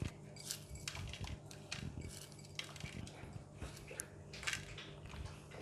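Crispy fried shallots pinched from a small glass bowl and sprinkled over fried fish: faint, scattered crisp rustles and light clicks.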